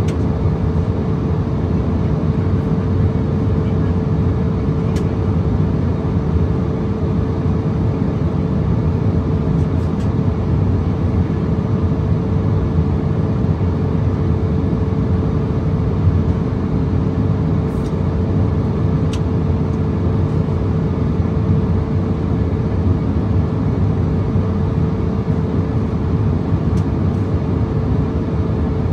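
Steady in-flight cabin noise of an Embraer ERJ-170 jet: a constant rush of airflow and engine drone from its wing-mounted turbofans, with a steady hum tone running through it and a few faint clicks.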